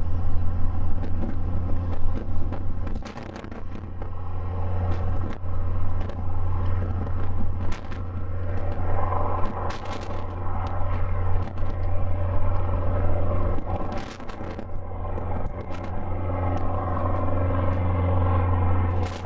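Boeing 777F freighter's GE90-110B1 turbofan engines running as the jet taxis: a steady low drone with a hum of tones above it, swelling a little twice. Scattered crackles sit on top.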